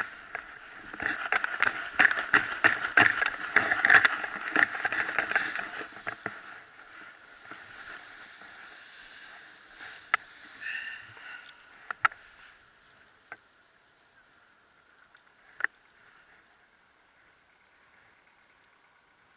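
Paraglider landing: wind rushing over the microphone and quick, rhythmic thuds of running footsteps on grass for about the first six seconds. Then it goes much quieter, with a few scattered clicks and rustles.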